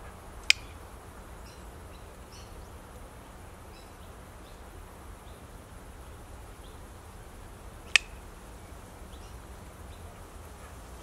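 Two sharp clicks of a dog-training clicker, about seven and a half seconds apart, each marking the dog's nose touching the trainer's hand.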